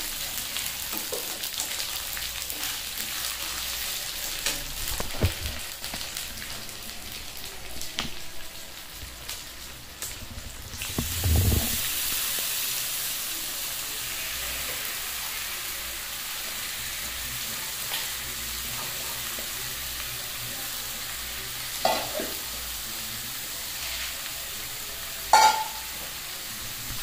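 Food frying in oil in a metal kadai: a steady sizzle with small spatula scrapes and clicks. About eleven seconds in the marinated chicken goes into the hot oil, with a low thump, and the sizzle grows louder. Two short, sharp metal clinks come near the end.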